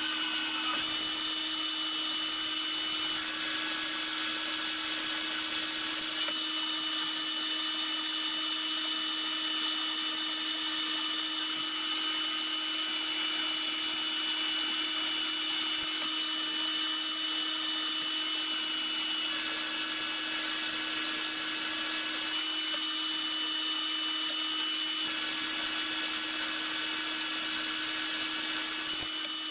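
Metal lathe running at a steady speed, its motor and gearing giving a steady whine with a held low hum, while the cutting tool turns an aluminum spacer. A few fainter tones come and go over the steady sound.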